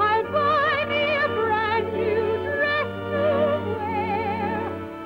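A woman's soprano voice singing a show tune, holding notes with a wide vibrato over instrumental accompaniment.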